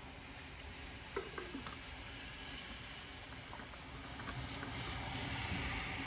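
Steady rain, with a car driving past on the wet road near the end, its tyres hissing louder as it approaches. A short sharp sound about a second in.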